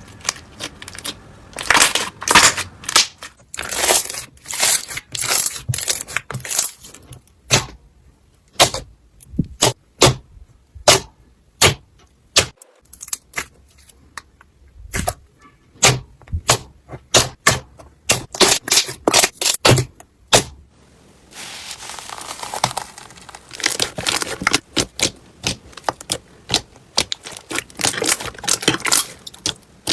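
Slime being played with, making many sharp crackles and pops, with a denser crackling stretch near the end.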